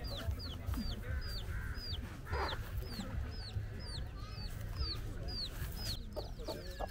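Chicks peeping steadily, a string of high, falling peeps about two a second, while a hen clucks low among them, most often near the end.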